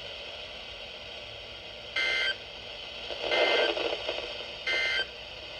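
Emergency Alert System end-of-message data tones over a weather radio: three short warbling bursts of digital data, each about a third of a second long and spaced over a second apart, over steady radio hiss, marking the end of the alert.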